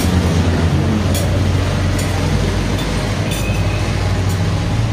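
Steady low rumble of passing vehicles on a busy road, with a few faint clicks.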